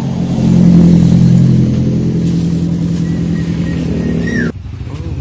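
A motor vehicle engine running steadily and loudly. It grows louder about a second in, then cuts off suddenly near the end.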